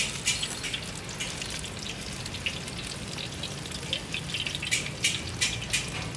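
Hot oil sizzling with irregular sharp crackles as vegetable fritters (cucur sayur) deep-fry.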